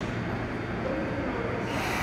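Steady hum and hiss of a stopped JR East E233-2000 series commuter train at a station platform, growing a little louder and hissier near the end.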